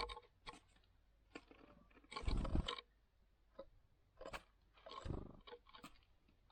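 Great tits coming and going at a wooden seed feeder right by the microphone: a few short rushes of wingbeats as birds land and take off, with scattered sharp clicks of beaks and feet on the seed and wood.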